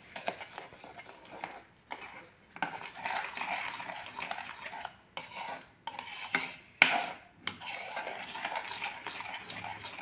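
A metal spoon stirs sugar into thick green-mango pulp in a kadhai, scraping and clinking against the pan in spells with short pauses. One sharper clink comes a little after halfway.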